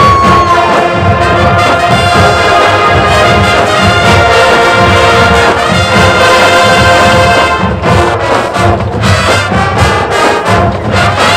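High school marching band playing at full volume: the brass section holds loud sustained chords, which break off about eight seconds in, leaving the drums driving a rhythmic beat under shorter brass hits.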